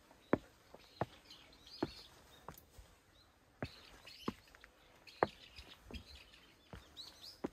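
Footsteps walking at an even pace, about one step a second, with small birds chirping in short high calls between them.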